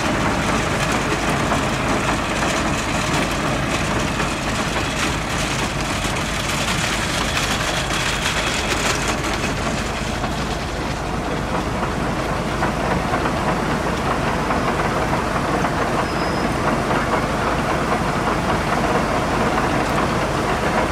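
An engine running steadily: a loud, even mechanical noise with a low, steady hum underneath, not changing in pitch.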